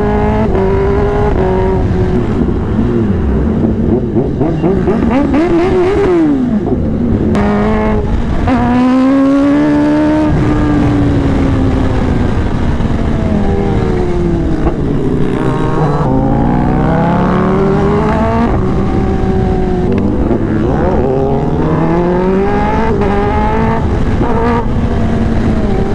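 Kawasaki ZX-10R superbike's inline-four engine running hard under riding, its pitch climbing as it accelerates and falling again several times through the gears.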